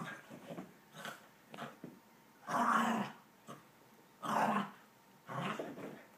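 Dog growling in play over a ball, in a series of short growls about a second apart, the longest three in the second half.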